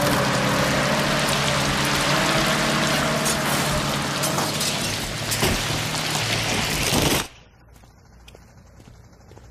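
A tracked hydraulic excavator demolishing a building with its grapple claw: the engine running under a continuous crunching and splintering of wood and plaster, with debris pouring down. It cuts off suddenly about seven seconds in, leaving only a faint background.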